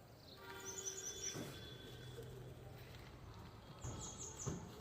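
High bird chirps: a short pitched call with a few chirps about a second in, then a quick run of four falling chirps near the end, over faint outdoor background noise.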